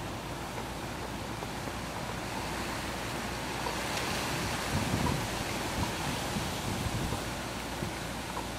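Steady rushing wind noise, with a few soft low buffets of wind on the microphone around the middle.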